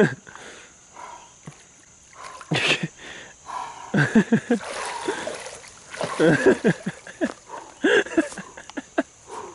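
Pond water splashing and sloshing as a man wades in up to his waist, mixed with his own wordless groans and gasps at how cold the water is. The groans come in short clusters through the second half.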